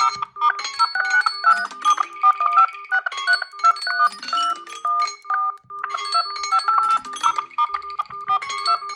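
Samsung Galaxy phone playing its ringtone melody: quick bright notes in a short phrase that repeats every two to three seconds over a steady pulsing low note.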